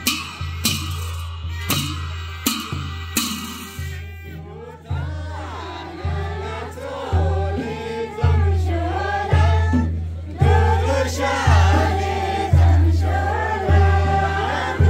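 Himachali folk dance music: a steady deep drum beat, about one beat a second, with sharp percussion hits at first, and singing coming in about five seconds in.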